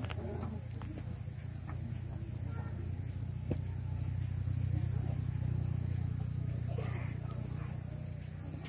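Outdoor ambience: a steady high-pitched insect chirring that pulses about twice a second, over a low steady rumble, with faint distant voices.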